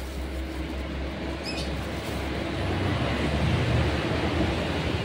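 Road traffic going past, with a motor vehicle's engine rumble swelling louder in the second half.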